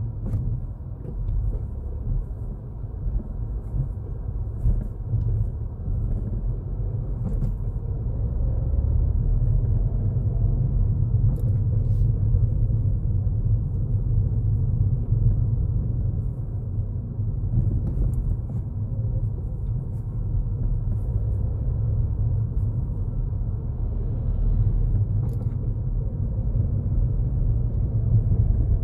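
Low, steady rumble of a Ford Fiesta's engine and tyres heard from inside the cabin while driving, growing a little louder about eight seconds in.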